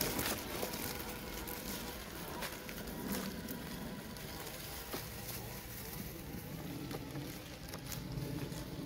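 Traxxas TRX-4 radio-controlled crawler driving over the forest floor: its small electric motor and drivetrain run steadily, with scattered crackles and clicks of leaves and twigs under the tyres.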